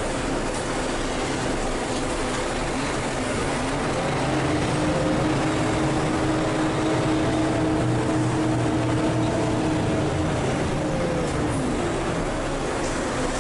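Volvo B12M bi-articulated city bus heard from on board: the engine and drivetrain running under road noise as it drives. A whine rises about four seconds in, holds steady, then drops away near the end.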